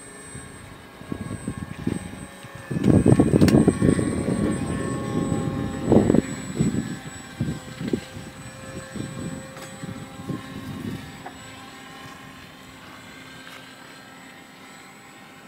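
Radio-controlled Icon A5 model seaplane flying overhead: a thin, steady whine from its motor and propeller, drifting slightly in pitch. Irregular low rumbling, loudest about three to six seconds in, fades out after about eleven seconds.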